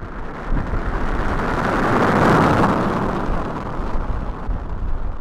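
A small baking-soda-and-citric-acid rocket launching: a broad rushing hiss of escaping gas and spray that swells to its loudest about two seconds in, then fades, over a steady low rumble of wind on the microphone.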